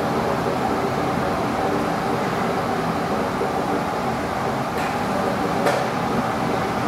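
Steady running noise of a multiphase flow loop: its pump and the water-and-air mixture rushing through the pipework, with a faint steady hum under it. Two faint ticks come about five seconds in.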